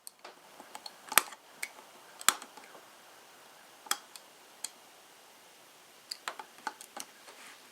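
Razor knife working at a plastic zip tie and its packaging: scattered sharp clicks and scrapes, the loudest about a second and two seconds in and a cluster near the end. The blade is dull and is not getting through the tie.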